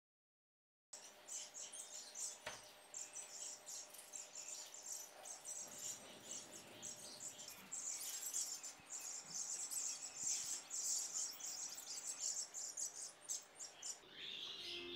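Silence, then about a second in a dense, high-pitched chirping of small animals starts up, many rapid chirps overlapping and continuing throughout. Near the end the chirping shifts lower in pitch.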